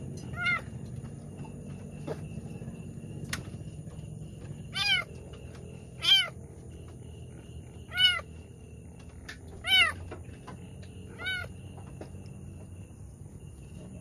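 Domestic cat meowing six times, short calls that each rise and fall in pitch, spaced irregularly a second or a few seconds apart. The cat is a pregnant queen straining in labour.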